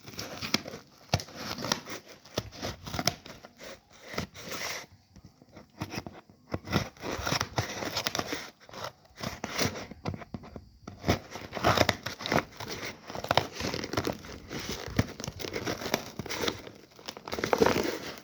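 Packaging being torn open and crinkled by hand: irregular rustling, crackling and tearing, with brief pauses about five and ten seconds in.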